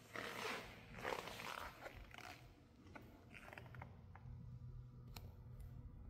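Faint handling noise: rustling and a few scattered clicks from a camera carried by hand while walking. A low steady hum comes in about four seconds in.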